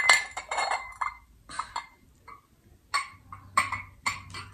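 A woman's excited wordless cries and laughter in short, sharp bursts, a few each second in the second half. They open with a ringing clink of glass dishware.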